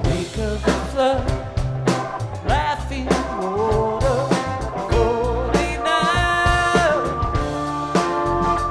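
Rock band playing live on drum kit, bass and electric guitars, with a melodic line that bends and holds notes over the beat.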